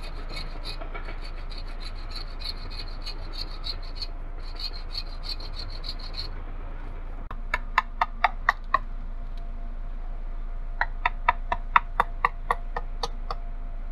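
Bow saw cutting through a green sapling pole in quick back-and-forth strokes, about three a second, with a short pause near the middle. After the sawing stops, two runs of sharp knocks, about four a second, as the end of the pole is worked with a knife.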